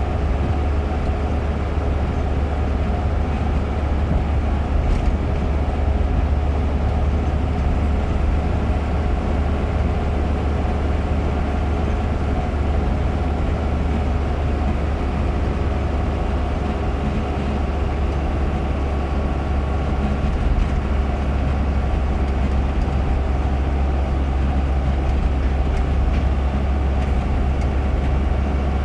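Car cabin noise at steady highway speed: a constant low rumble of engine and tyres on the road, with no changes in pitch or level.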